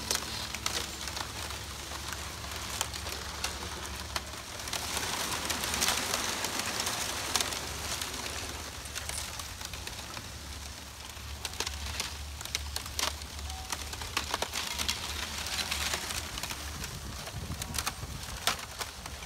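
Thin sheets of clear lake ice breaking and stacking against a rocky shore: continuous crackling and clinking of ice shards, with many sharp clicks, over a steady low rumble.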